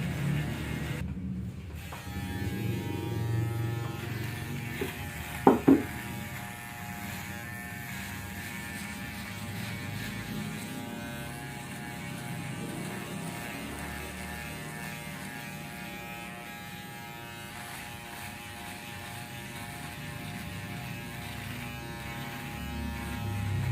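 Electric head shaver running with a steady buzz while shaving a scalp down to bald. About five and a half seconds in there are two short, loud sounds in quick succession.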